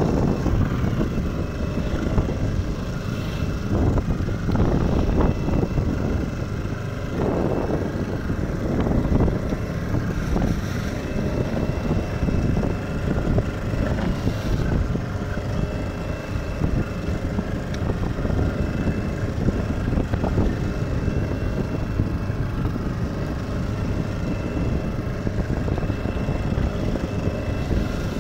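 Steady noise of a small fishing boat in choppy sea: waves splashing against the hull and wind buffeting the microphone, with a faint steady hum under it.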